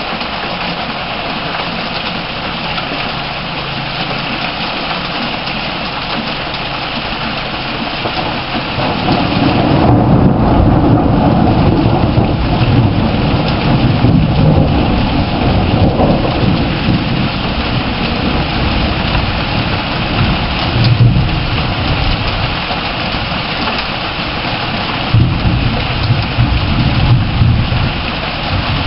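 Heavy rain falling steadily; about a third of the way in, thunder starts rumbling low and rolls on for several seconds, swelling again twice later on.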